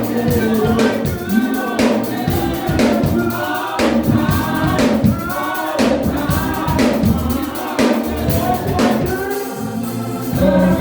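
Gospel worship song: a group of voices singing together over a band with a steady drum beat.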